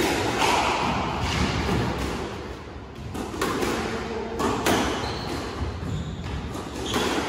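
Squash ball being struck with rackets and hitting the court walls and floor during a rally: a series of sharp hits at uneven intervals.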